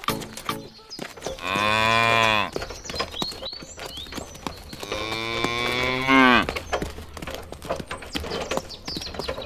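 A cow mooing twice, each moo a long drawn-out call of about a second or more, with bird chirps and scattered light clicks around them.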